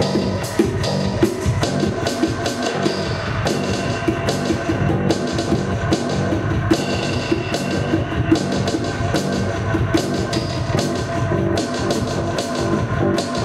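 Rock music played by a band, a drum kit keeping a steady beat under sustained instrumental tones, with no singing.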